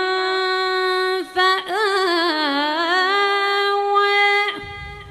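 A woman's voice reciting the Quran in melodic tajwid style, drawing out one long note with a short break a little past a second in and wavering ornaments in the middle, then stopping near the end.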